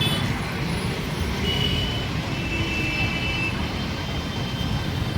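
Steady road traffic: a constant rumble of passing vehicles' engines and tyres.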